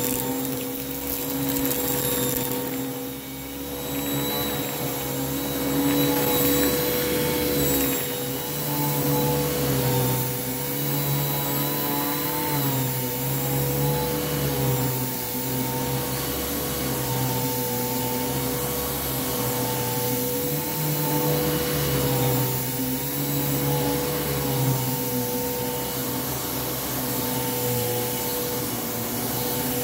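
Bissell Lift-Off Revolution Turbo upright vacuum cleaner running steadily on a carpeted rug as it is pushed back and forth. Its motor note wavers up and down every couple of seconds.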